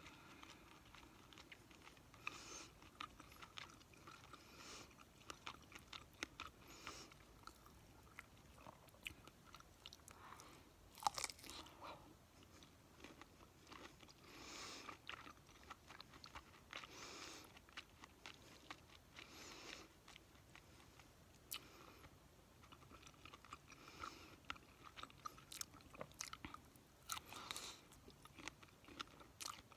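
A person chewing and crunching food close to the microphone, with irregular soft crunches throughout and a louder bite about eleven seconds in.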